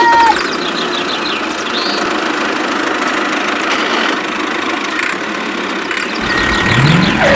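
Tractor engine sound running steadily with a rough clatter as a toy tractor drives, rising briefly in pitch near the end.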